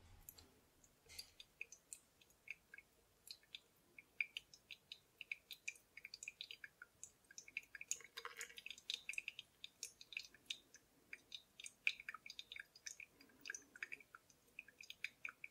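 Faint, irregular light clicks and clinks of small hard keyboard parts being handled and fitted during a mechanical keyboard build, a few per second with no steady rhythm.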